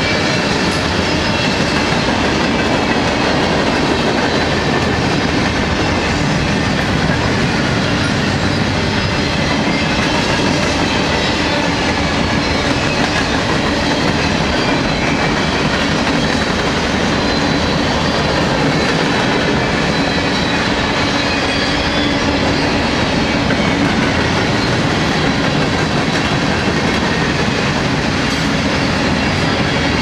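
Cars of a long mixed freight train (covered hoppers, boxcars, tank cars) rolling past close by at speed: a loud, steady rumble and clatter of steel wheels on the rails.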